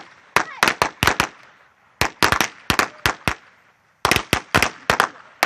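A string of firecrackers going off: rapid, irregular volleys of sharp cracks, broken by a short lull about a second and a half in and another just before four seconds.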